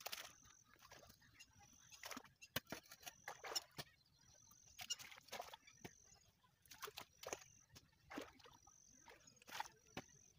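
Spade strokes cutting into and slapping wet mud, with splashes of shallow muddy water, coming as short irregular bursts about once a second as earthen bunds are built along a flooded irrigation channel. A short high peep repeats faintly about once a second underneath.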